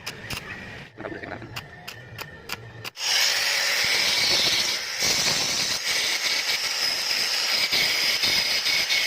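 A run of light clicks, then about three seconds in a power tool starts at full level and runs steadily with a high, hissing whine.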